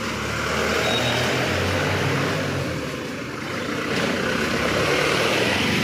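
Street traffic: motor vehicle engines running close by over a steady wash of road noise.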